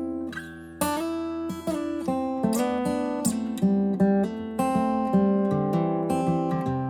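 Background music of acoustic guitar, plucked and strummed notes.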